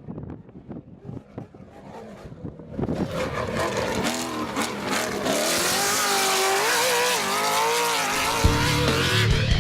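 Off-road race vehicle's engine revving hard, its pitch climbing and falling again and again. It is faint and crackly at first and turns loud about three seconds in.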